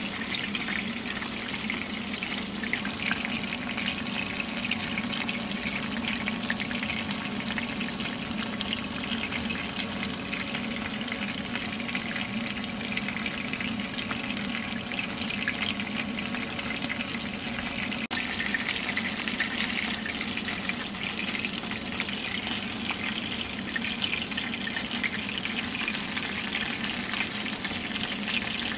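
Flour-coated chicken pieces (karaage) shallow-frying in oil in a frying pan: a steady sizzle with fine crackling throughout.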